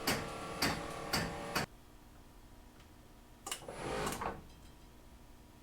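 Genie 1200 garage door opener motor running as it raises the door, with a regular click about twice a second. It cuts off suddenly about a second and a half in, at the end of jogging the door up to set the open limit. A short rattle follows about two seconds later.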